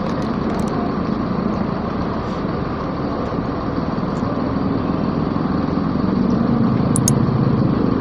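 Bus engines idling and vehicles moving around a bus terminal: a steady low rumble that grows louder toward the end as a motorcycle approaches, with a few sharp clicks.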